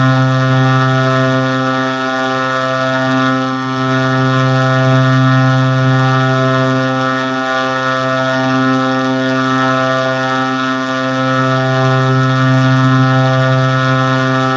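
A steady low buzzing drone sound effect held at one unchanging pitch, rich in overtones, swelling and easing slightly in loudness every few seconds.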